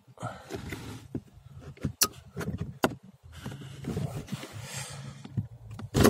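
Clicks and scraping of plastic as a wiring connector is levered off a Ford Fiesta's heater blower resistor with a screwdriver. A few sharp clicks stand out, the clearest about two seconds and nearly three seconds in.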